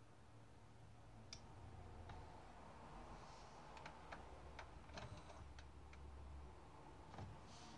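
Pioneer PD-F606 25-disc CD changer's mechanism working faintly as it loads a disc: a low hum with scattered light clicks, several coming close together about four to five and a half seconds in.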